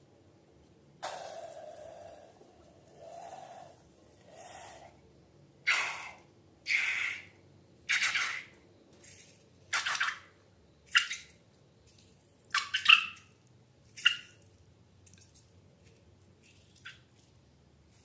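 Wet slime-making sounds: a run of about a dozen separate squelches and splats, roughly one a second, as liquid and slime ingredients are squeezed out and handled. The first few are longer and softer, the middle ones loud and sharp, and they die away near the end.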